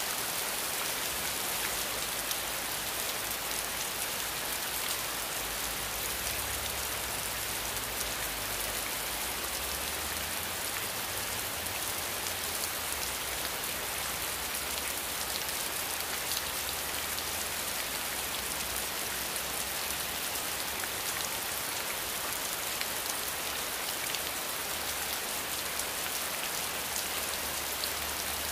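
Steady rain, an even hiss with faint scattered drop ticks that holds at one level throughout.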